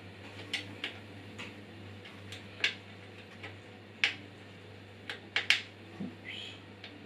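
Irregular light clicks and taps of metal parts as hands fit and screw the saw table onto a Parkside bandsaw, about a dozen clicks with a short scrape near the end, over a faint steady hum.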